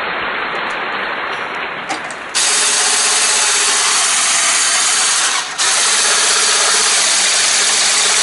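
Electric hand mixer running, its whisks beating butter and sugar in a bowl; the whir gets louder about two seconds in and dips briefly halfway through.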